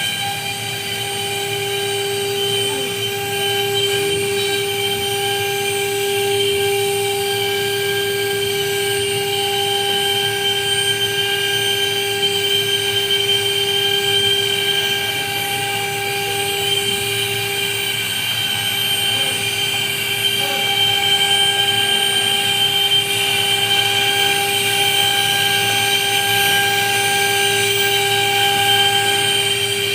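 CNC machine running with a steady, high-pitched whine that holds one pitch throughout.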